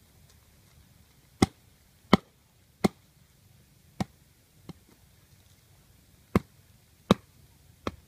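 A large knife blade striking down into hard, dry soil, eight sharp chops at uneven intervals with a short pause in the middle.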